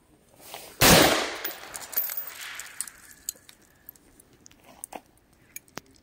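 A single shot from a Del-Ton Sierra 316 AR-15 rifle about a second in, with a long echo that dies away over the next two seconds. A few faint clicks follow.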